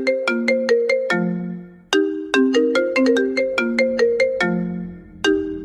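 A ringtone-style melody of quick struck, ringing notes over a lower held tone, a phrase of about three seconds played again about two seconds in.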